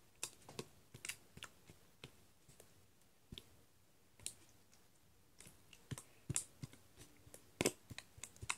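Slime being squeezed and pulled apart by hand, giving irregular sticky clicks and pops that come more often and louder in the second half.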